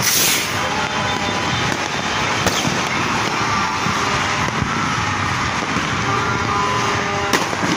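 Fireworks and firecrackers going off across a city at New Year: a steady dense crackle of distant pops, with a few sharper bangs just at the start, about two and a half seconds in, and near the end.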